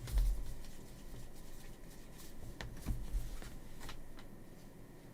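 Trading cards being handled and sorted, with a few short clicks and rustles of card stock.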